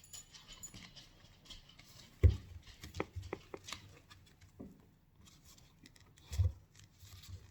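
Hands handling a sixth-scale action figure and its cloth costume: small scattered clicks and rustles, with two dull bumps about two seconds in and near the end.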